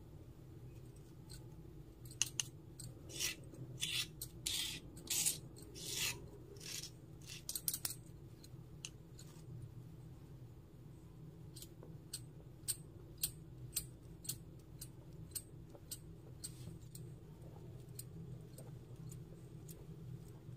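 Small stone pestle grinding and scraping in a miniature stone mortar. A run of short rasping strokes comes first, followed by lighter, separate clicks of stone on stone, about one or two a second.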